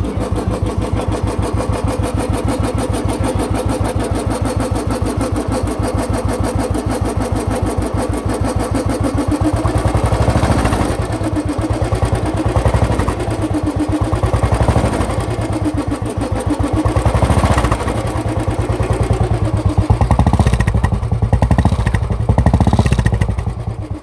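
Royal Enfield Bullet single-cylinder four-stroke engine running with a steady thumping beat after fitting a new block, piston and rings. It is blipped up in speed a few times in the second half.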